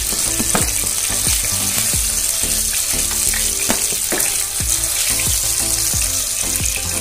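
Mustard oil sizzling steadily in a frying pan as fried katla fish head pieces are lifted out with a spatula. Background music with a steady beat plays under it.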